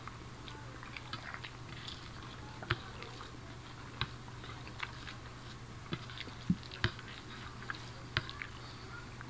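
Sounds of people eating rice and curry by hand: chewing and fingers working rice on plates, with scattered small sharp clicks and taps over a faint steady hum.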